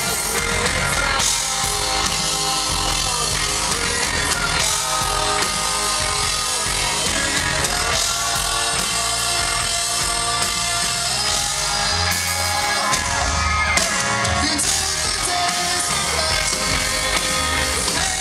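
Rock band playing live on stage: electric guitars, bass and drums with a singing voice over them, amplified through the venue's sound system and heard from the audience.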